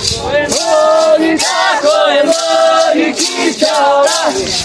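A group of voices singing a ritual chant together in a sustained, wavering melody, with hand rattles (maracas) shaken in a regular beat.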